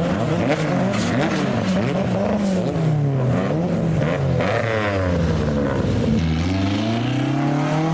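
Several car engines accelerating and easing off, their notes rising and falling over one another. About six seconds in, one engine's note climbs steadily as it pulls away.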